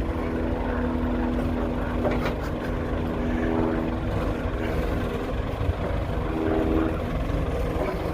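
Diesel engine of a 2000 New Holland 655E backhoe loader running under hydraulic load while the backhoe boom swings side to side, its note swelling twice as the swing works. A few brief clicks come about two seconds in.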